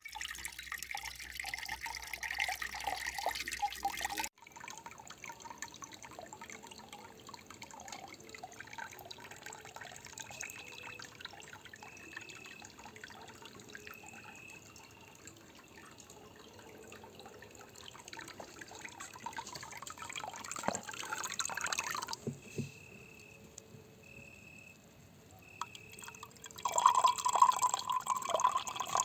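Liquid dripping and trickling across several spliced clips, with abrupt changes in the sound about 4 seconds in and again near the end, where it grows louder.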